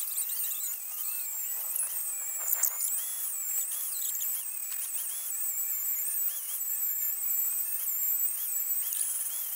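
Angle grinder grinding into a steel bar, a high whine that rises and dips in pitch as the disc is pressed into the metal and eased off.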